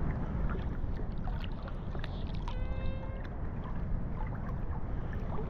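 Small sea waves lapping and sloshing against a phone held at the water surface, with a low rumble on the microphone and small splashes. A short steady pitched tone sounds briefly about two and a half seconds in.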